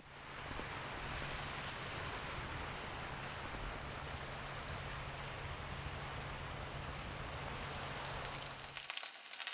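Steady rushing seaside ambience of wind and surf, fading in at the start. About eight seconds in it gives way to the crackle of food frying in oil in a pan.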